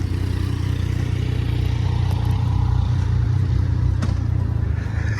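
Car engine idling: a steady low drone.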